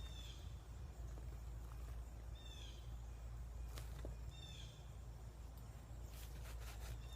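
A songbird calling outdoors, the same short chirping phrase repeated three times about two seconds apart, over a low steady background rumble, with a few soft clicks near the end.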